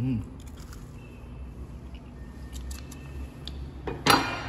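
A few small faint clicks over a steady low background hum, then one loud sharp knock with a brief ring about four seconds in, followed by a smaller click.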